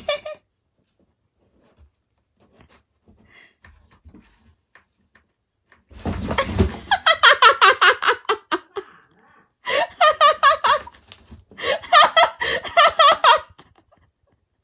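A person laughing hard in three bouts of quick, rhythmic ha-ha pulses, starting about six seconds in after a few seconds of near quiet.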